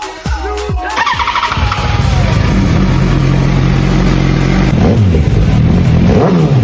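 Yamaha R1 inline-four motorcycle engine turning over and catching about a second in, then settling into a steady idle, with a couple of short throttle blips near the end. It is the first start after two years laid up.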